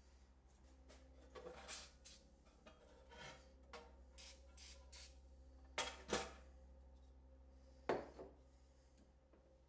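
Antique metal kitchen scale being handled and turned over on a wooden workbench: scraping, rubbing and light metallic clicks, with three sharper knocks against the bench, two close together about six seconds in and one about eight seconds in.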